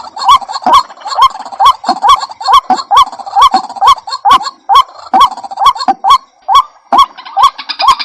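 White-breasted waterhen (ruak-ruak) calling: a short note that rises and falls, repeated over and over about two or three times a second, each with a sharp click at its start.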